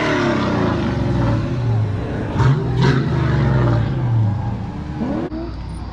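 Chevy C10 drift truck's 6.0-litre V8 revving, its pitch rising and falling as it is driven off the course. Two short sharp noises come a little before the middle.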